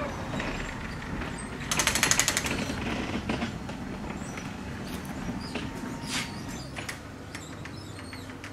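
Sectional garage door rolling open, with a rapid rattle about two seconds in, then a steadier running noise with scattered clicks as the panels travel up the track.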